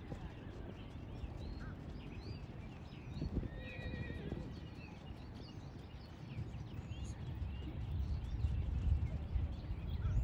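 A horse whinnies once for about a second, a little over three seconds in, over the hoofbeats of a horse trotting on sand arena footing.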